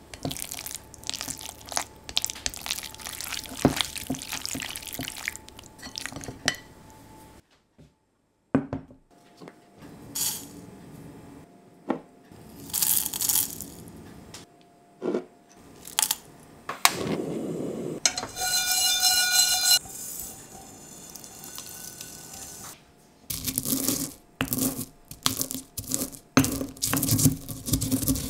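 A series of kitchen handling sounds. First a hand mixes sliced raw beef through its marinade in a glass bowl, then coriander seeds are handled in a dry metal pan, with a ringing tone lasting about two seconds midway. Near the end a pestle grinds spices in a mortar with quick, repeated strokes.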